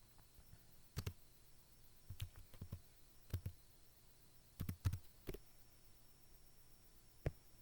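Faint, scattered clicks of a computer mouse and keys, about eight over several seconds, some in quick pairs, while an image of a shotgun is searched for online.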